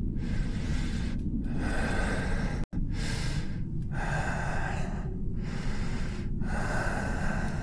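Heavy breathing from the wolf character, about six breaths in quick succession roughly a second apart, over a steady low rumble. The sound cuts out for an instant about two and a half seconds in.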